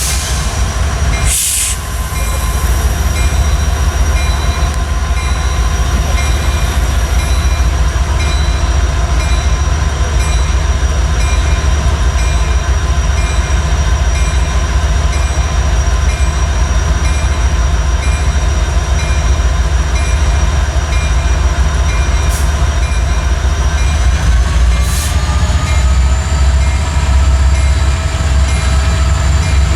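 Norfolk Southern train running close by: a deep, steady rumble of diesel locomotives and rolling cars with a steady high whine over it. There is a sharp knock about a second and a half in, and the whine steps up in pitch about 25 seconds in.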